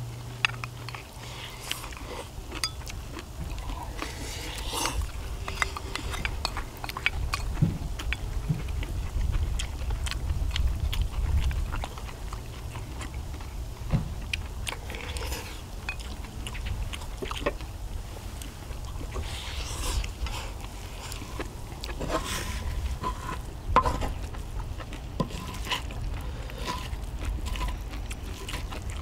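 Eating sounds: chopsticks and spoons clicking against bowls and a griddle, with chewing, over a steady low rumble.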